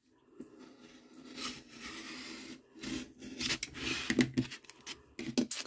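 Snap-off craft knife blade slicing through cotton rag watercolour paper along the edge of a wooden cradle board, in several drawn scraping strokes with small clicks.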